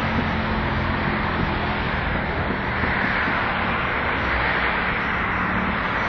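Steady road traffic noise from vehicles crossing a bridge, a continuous rush that swells slightly about halfway through.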